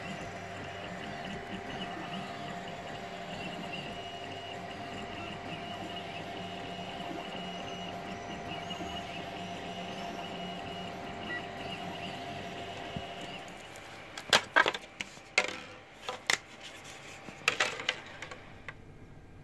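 3D printer running while it prints, a steady hum and whine with several held tones, which stops about two-thirds of the way in. A few sharp clicks and knocks follow.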